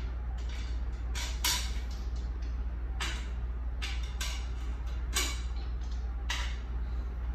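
Handling noises from parts of a large-animal anesthesia ventilator's bellows canister being refitted by hand: about seven short scrapes and rubs, over a steady low hum.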